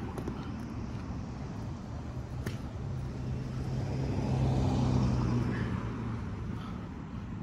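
A motor vehicle passing by: a low engine hum that swells to its loudest about five seconds in and then fades.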